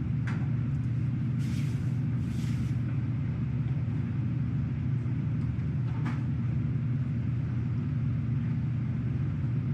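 A steady low rumble with no words, with two short hisses about one and a half and two and a half seconds in, and a faint brief click about six seconds in.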